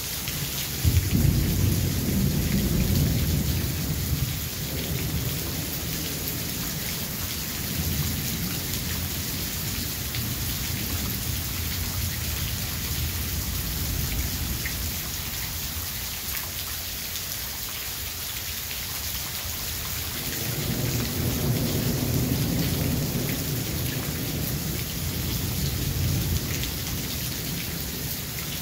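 Thunderstorm: steady rain hiss with two rolls of thunder, the first opening with a sharp crack about a second in and rumbling for several seconds, the second rumbling in about two-thirds of the way through.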